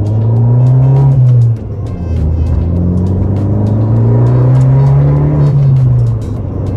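Abarth 500's turbocharged four-cylinder engine pulling through the gears: revs climb, drop sharply at a gear change about a second and a half in, then climb again and ease off near the end. Background music plays over it.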